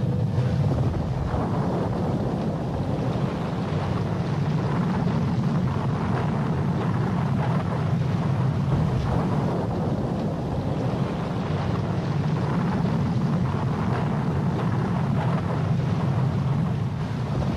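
Steady wind noise buffeting the microphone, with the rush of rough, breaking sea.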